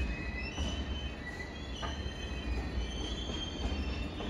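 Freight wagons rolling slowly past, their wheels squealing on the rails in several high, wavering tones over a steady low rumble.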